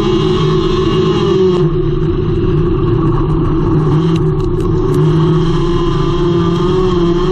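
Engine of a front-wheel-drive hornet-class dirt track race car running hard at fairly steady revs, heard from inside the car, with a few faint clicks about four seconds in.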